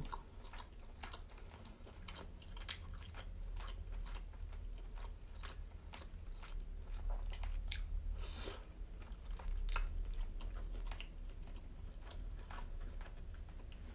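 Close-miked chewing of tuna-stuffed squid, full of wet mouth clicks and smacks, over a steady low hum.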